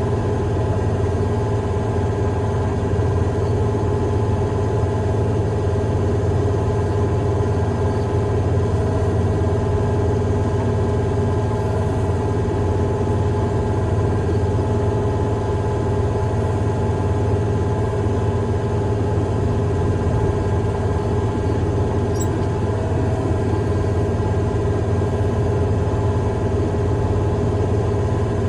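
Heavy-equipment engine running at a steady speed, a constant low drone with no change in pitch or loudness.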